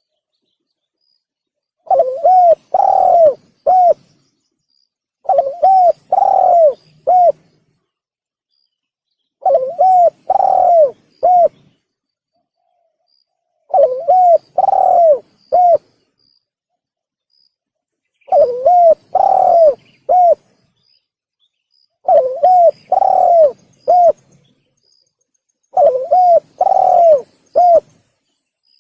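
Male spotted dove (tekukur) cooing its song, seven phrases of about four notes each, with a short pause between phrases: a lure call used to draw in other spotted doves.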